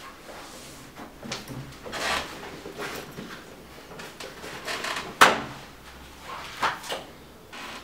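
Handling sounds at a desk: a chair being pulled out and sat on, then a spiral notebook being opened, as a series of separate knocks and rustles. The loudest is a sharp knock about five seconds in.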